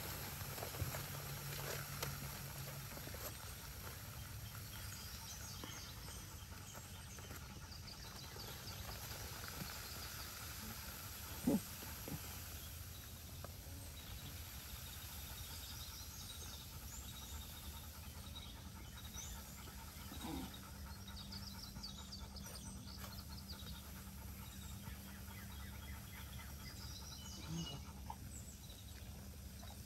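Faint outdoor ambience with light chirping high up that comes and goes, and a single short animal call about a third of the way in.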